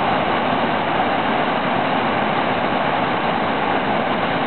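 Whitewater rapids rushing steadily over boulders, a loud unbroken wash of water noise.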